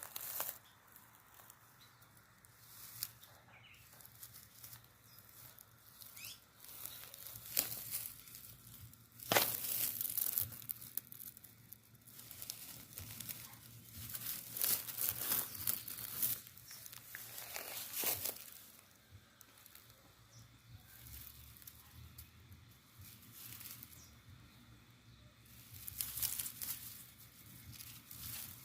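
Irregular bursts of rustling and crinkling that come and go, with quieter stretches between.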